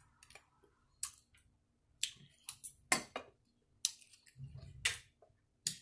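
Eating sounds at the table: about eight scattered sharp clicks and smacks from the mouth and a fork on the dish, with a dull low bump a little past four seconds in.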